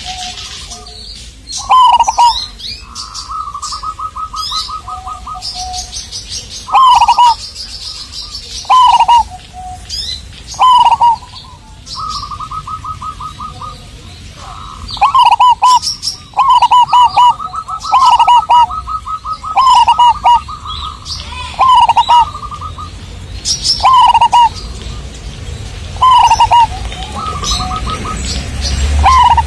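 Zebra dove (perkutut) singing: loud phrases of short downward-bending coos, repeated every second or two, with several stretches of rapid pulsed cooing between them.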